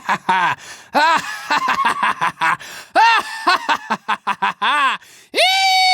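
A high-pitched, cartoonish voice making quick squealing and giggling cries, each rising and falling in pitch, then breaking into one long held squeal near the end.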